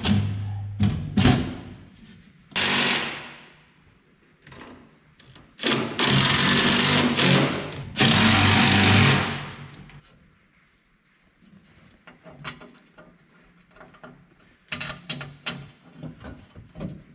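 Cordless impact driver running in three bursts, a short one and then two of about a second and a half each, driving in panel bolts. Light metal clicks and knocks follow near the end.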